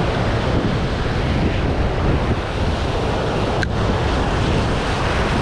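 Ocean surf washing and foaming over a rocky shoreline, a steady rush, with wind buffeting the microphone. There is a faint click about three and a half seconds in.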